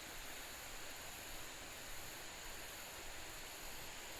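Faint steady outdoor ambience: an even hiss with a constant high-pitched insect drone.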